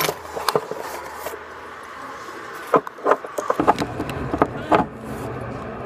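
Handling noise of a phone being fitted into place in a car: a scatter of clicks, knocks and rubbing on the microphone, thickest in the second half. A low steady rumble comes in about three and a half seconds in.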